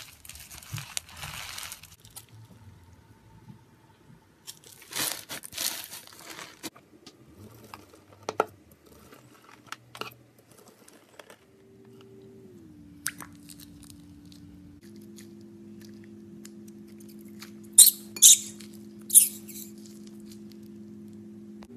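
Slime being squeezed and poked by hand, with crunching and crackling sounds, then three loud sharp pops a little before the end. A steady low hum comes in about halfway.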